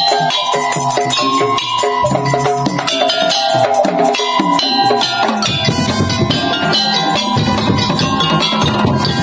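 Tongtong percussion music: a pitched melody over drums and struck percussion, with heavier low drum beats joining about five and a half seconds in.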